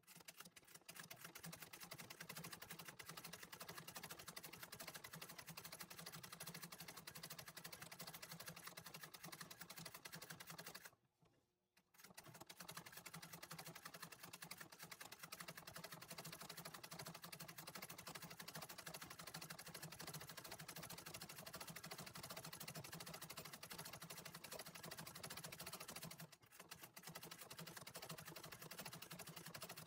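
Antique treadle sewing machine running fast in free-motion embroidery, a faint, rapid, even patter of needle strokes. It stops for about a second a third of the way in, and falters briefly again later.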